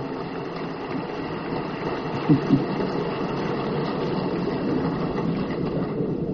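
Large audience applauding steadily in a big hall, with a brief voice about two seconds in.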